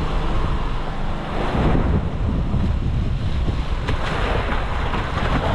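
Seawater splashing and sloshing against the hull and outrigger of a small outrigger fishing boat, with wind buffeting the microphone.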